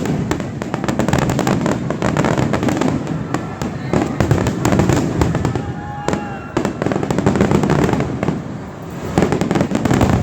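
Aerial fireworks going off in quick succession: a dense, continuous run of bangs and crackles.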